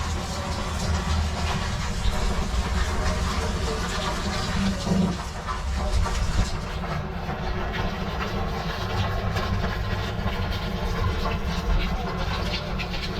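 Steady rain falling, a dense hiss of drops with a low rumble underneath.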